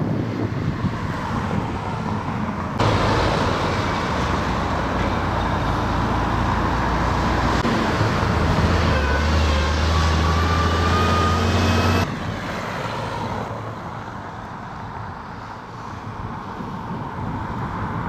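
Motor traffic noise with a heavy engine running. The engine comes in abruptly about three seconds in, its pitch shifting in steps, and drops out just as suddenly about twelve seconds in, leaving a lighter traffic hum.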